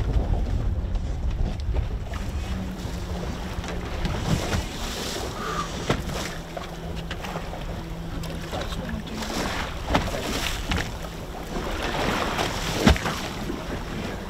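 Wind buffeting the microphone and choppy sea water slapping against a small fiberglass fishing boat's hull, with a few sharp knocks, one right at the start and two more near the end.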